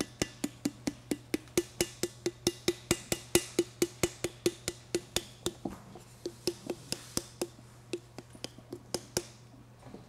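Wooden paddle striking the wall of a hollow clay pitcher to shape its corner, in rapid sharp knocks about four a second, each with a short low ring. After about five seconds the knocks slow, grow softer and uneven, and they stop shortly before the end.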